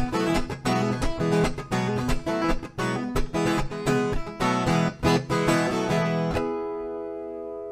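Instrumental passage on viola caipira and acoustic guitar: quick plucked and strummed notes, then a final chord about six seconds in that rings on and slowly fades.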